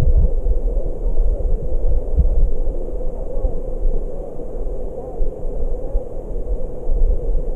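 Muffled, steady rumble of a stream's flowing water heard through a submerged camera, dull and low with no clear highs.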